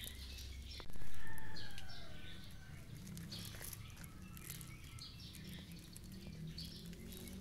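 Birds chirping over outdoor background noise with a low steady hum; about a second in, a loud sound starts suddenly and fades away over about a second.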